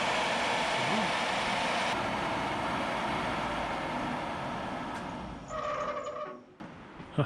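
Wood-Mizer LT15 sawmill's electric motor and blade running with a steady whir, then switched off about five seconds in, winding down with a brief whine and stopping. A single click follows near the end.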